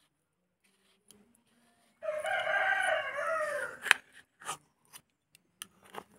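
A rooster crows once, a single call of about two seconds that begins about two seconds in and falls away at the end. Then come several sharp metallic clinks, the loudest just as the crow ends: a steel knife tapping against a steel cup and plate.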